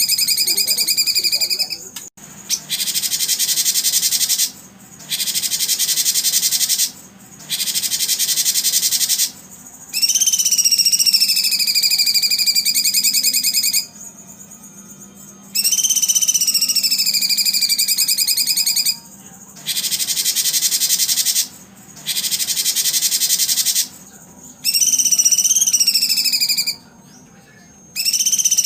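Recorded birdsong played in repeated phrases of about two to four seconds, with short gaps between them. Dense buzzy trills alternate with long, slightly falling two-note whistles.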